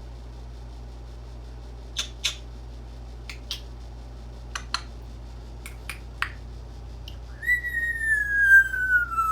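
A whistled falling-bomb sound effect: one long whistle that starts about three quarters of the way in and slides steadily down in pitch. Before it come a handful of short, sharp clicks.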